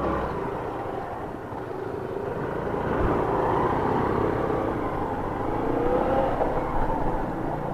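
Motorcycle engine running under way, with road noise; it grows somewhat louder about two to three seconds in.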